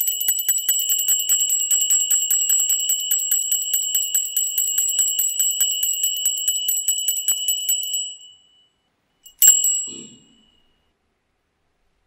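Altar bells rung rapidly and continuously for about eight seconds at the elevation of the consecrated host, then a single sharp stroke about a second and a half after they stop.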